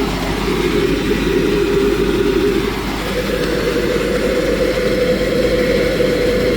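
A steady machine or engine hum with a strong droning tone whose pitch steps up slightly about three seconds in.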